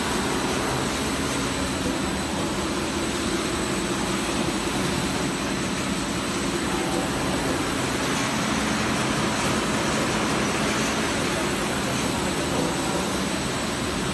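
Combined sanding and brushing machine for door panels running, its motors and rotating sanding and brush rollers making a steady mechanical noise.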